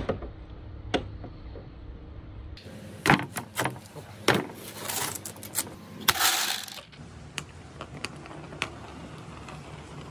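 Small billiard balls clacking and rattling together in a plastic crate as a hand handles them, with sharp clicks from about three seconds in and the loudest rattle at about six seconds, then scattered single clicks. It opens with a ball splashing into a tank of water.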